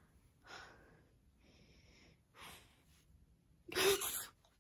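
A woman's short, soft excited breaths, then a loud sharp gasp near the end.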